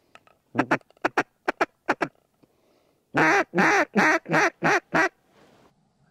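Duck quacks close by: a run of short, quick quacks, then after a short pause six loud, drawn-out quacks in an even cadence.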